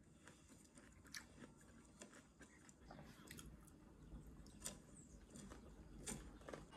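Faint chewing of a mouthful of kimbap (seaweed-wrapped rice roll), with a few short crisp clicks scattered through.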